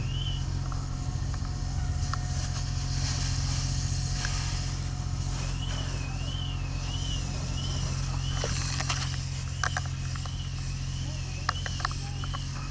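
Fire engine's pump engine running steadily while a fire hose sprays water onto a burning car, with a hiss of spray. A high electronic alarm tone warbles rapidly up and down, briefly at the start and again for several seconds in the middle. A few sharp clicks come near the end.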